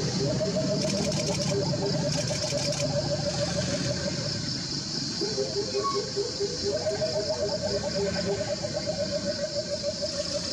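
Outdoor ambience: two callers give long trains of rapid pulsed calls at slightly different pitches, overlapping and taking turns, over a steady high insect-like drone.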